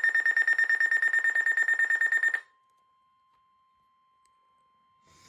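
Weather radio receiver's electronic alert alarm beeping rapidly and loudly, about seven beeps a second, signalling an incoming warning. It stops about two and a half seconds in, leaving only a faint steady tone, and starts beeping again at the very end.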